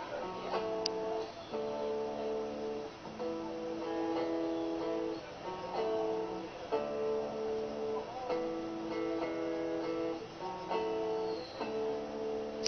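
Guitar strummed in steady chords that change every second or two.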